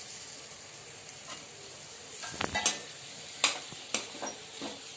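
Diced boiled potatoes frying with onion and spice paste in a kadhai, with a steady faint sizzle. A metal slotted spoon scrapes and clicks against the pan a few times in the second half as the potatoes are stirred.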